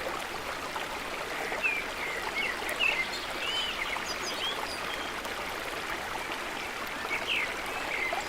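Water running steadily, like a small stream, with short high bird chirps over it every second or so.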